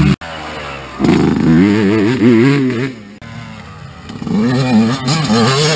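Dirt bike engines revving up and down in quick, wavering surges as the bikes ride, broken by sudden cut-offs where the clips change.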